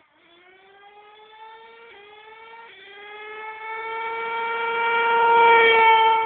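HPI Savage nitro RC monster truck's two-stroke glow engine at full throttle, its pitch climbing and dropping back twice as the three-speed transmission shifts up. It grows much louder as the truck approaches and passes near the end with a slight drop in pitch.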